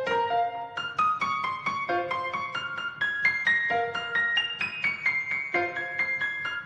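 Background piano music: a quick, steady run of bright notes.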